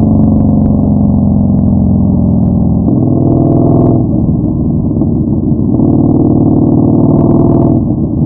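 Yamaha Bolt 950's V-twin engine running through a Vance & Hines Twin Slash staggered exhaust while riding, pitch rising with throttle about three seconds in, dropping a second later, then rising and falling again near the end.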